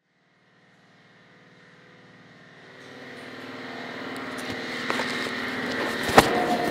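A steady machine hum on a building site fades in from silence and grows louder, with a couple of sharp knocks near the end.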